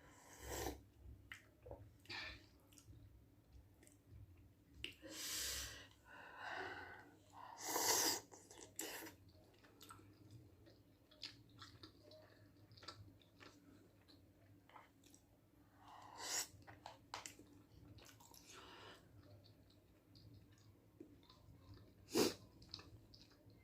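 A person chewing soft Korean rice cakes (tteokbokki), faint mouth clicks and wet chewing sounds, with a few louder breathy bursts, the loudest about eight seconds in and a sharp one near the end.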